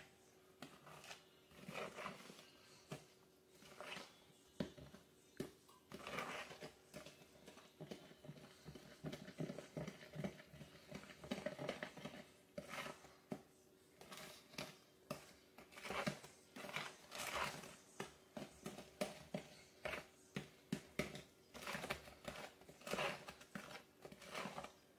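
A spoon stirring thick cornbread batter in a plastic mixing bowl: faint, quick, irregular scrapes and taps against the bowl, a few strokes a second.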